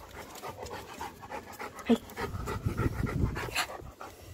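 Labrador dog panting quickly and steadily. There is a sharp click about two seconds in, and a low rumble after it.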